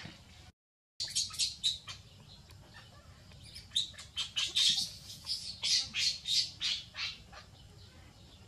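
Baby macaque crying in rapid, short, high-pitched shrieks, in two runs of cries.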